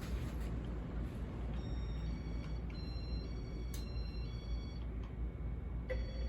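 Casablanca Stealth ceiling fan running on high speed, a steady low hum and air rumble. Faint high chiming tones sound for a few seconds in the middle and briefly again near the end.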